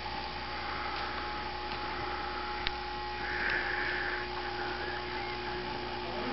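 Steady electrical hum holding two even tones. There is a single sharp click a little under halfway through, and a short soft hiss just after it.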